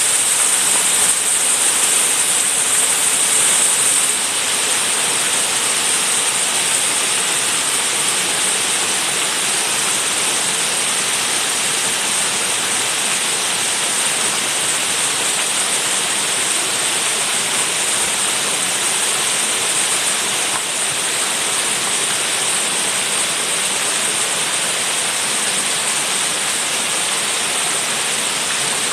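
Steady rush and splash of falling water at the Bigăr waterfall, with a bright hiss on top, a little louder for the first four seconds.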